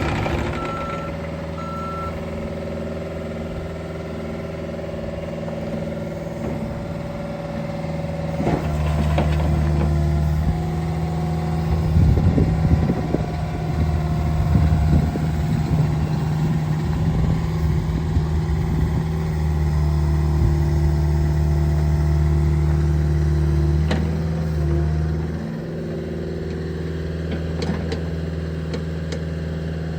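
The 40-horsepower diesel engine of a 2012 Caterpillar 305E CR mini excavator running steadily, with three short beeps in the first two seconds. About eight seconds in it grows louder and rougher, then settles back to a lower, even run near the 25-second mark.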